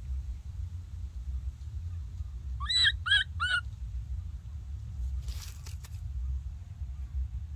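Baby macaque giving three short, high-pitched squeaking calls in quick succession, followed a couple of seconds later by a brief rustle of leaves and twigs, over a low steady rumble.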